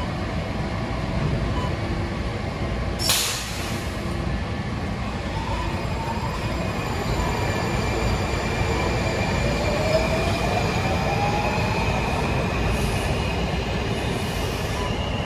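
Washington Metro 3000-series train pulling out of an underground station: steady rumble of the cars on the rails, a short sharp hiss about three seconds in, and a whine from the propulsion that rises in pitch as the train picks up speed.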